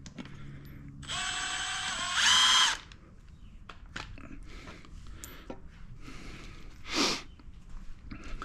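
Cordless power driver spinning a 10 mm socket to back out valve cover bolts: one run of nearly two seconds about a second in, the motor's pitch steady and then rising near the end, and a short second burst around seven seconds. Light clicks of bolts and socket in between.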